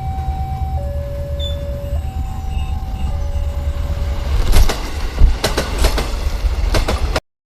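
Railway level-crossing warning siren (Alkmaar make) sounding a two-tone high-low alternation, each tone held about a second. About four seconds in, a train passes over the crossing with loud clusters of wheel clicks over the rail joints and a steady low rumble. The sound cuts out suddenly near the end.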